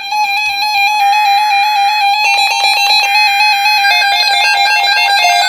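Electronic synthesizer music: bright, buzzy held notes that change pitch like a melody, with a quick pulsing passage about two seconds in.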